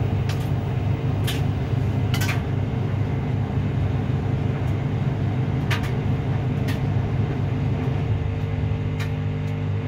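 Samsung front-loading washing machine spinning its drum during the spin after the first rinse, a steady low motor and drum hum with a few sharp clicks now and then; the load is unbalanced.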